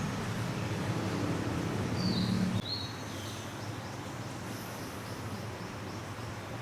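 Outdoor ambience: a steady hiss with a few short bird chirps two to three seconds in. A low hum in the first part stops abruptly at an edit.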